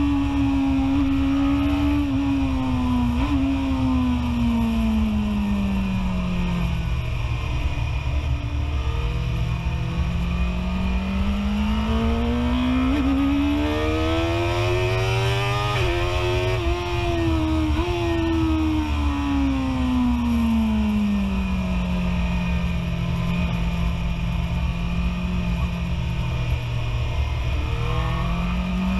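BMW S1000RR inline-four engine, heard from on board at speed. The revs fall for the first several seconds, climb hard from about a third of the way in with a few quick hitches, fall again and hold steady, then start to climb again near the end.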